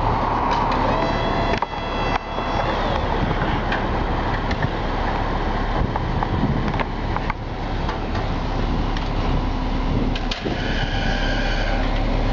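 Boom truck's engine running steadily, with a few sharp knocks and a brief higher whine near the end.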